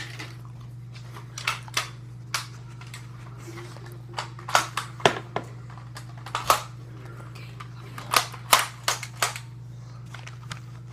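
Nerf dart blaster being worked and fired: a string of sharp plastic clicks and snaps in uneven clusters, from priming, firing and darts striking.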